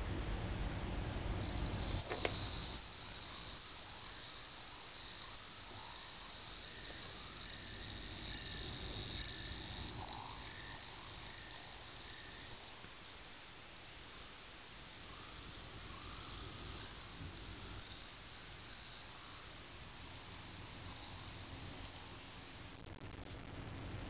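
Japanese bell cricket (suzumushi) singing a high, ringing trill that swells and fades in repeated phrases. It starts about two seconds in and stops abruptly near the end.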